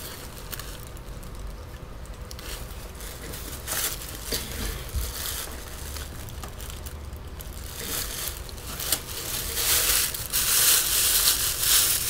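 Paper packaging rustling and crinkling as it is handled, in short scattered crinkles that grow louder near the end.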